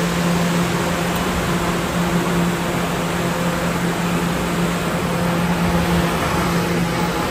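An R211A subway car standing at the platform with its doors open, giving a steady hum with a constant low tone over an even wash of noise.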